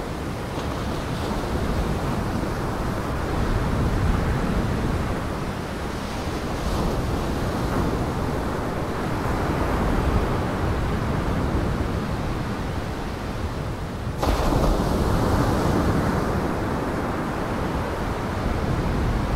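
Lake waves washing onto a rocky shore: a steady rushing that swells and eases every few seconds, with an abrupt break about fourteen seconds in, after which it comes back slightly louder.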